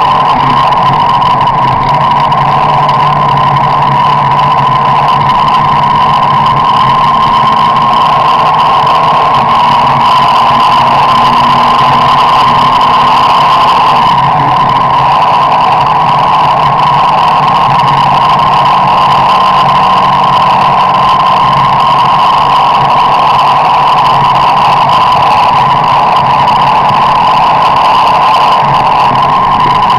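Car driving steadily at cruising speed, heard from inside: constant engine and road noise with a steady high hum over the low engine note.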